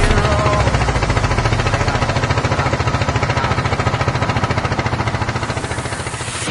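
Boat engine running steadily, a rapid even knocking that fades a little.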